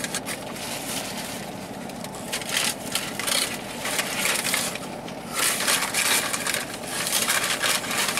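Crunching and crackling from eating a crispy fried chicken sandwich, with rustling of its paper wrapper. It comes in irregular bursts, loudest about three seconds in and again from about five and a half seconds to near the end.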